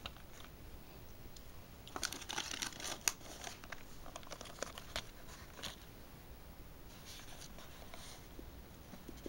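Clear plastic blister pack of a model car crinkling and clicking as it is picked up and handled, in irregular bursts, busiest about two to three and a half seconds in.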